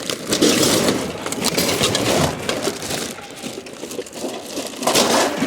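Junk being rummaged through and shifted in a trash pile: steady crunching, scraping and clattering, with pots and pans clanking together inside a bag.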